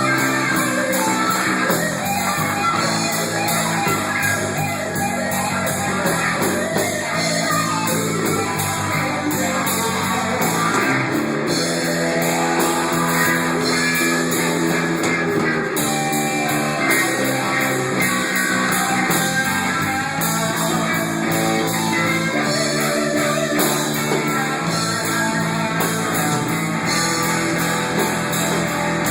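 Loud, steady amplified band music led by guitar, with a rock sound.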